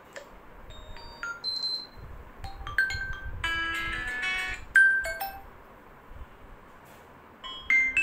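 Short system ringtone previews playing from a Redmi 12 5G's speaker as tones in the list are tapped: brief chimes and beeps, then a short tinkling tune a few seconds in. After a quiet stretch, another melody starts near the end.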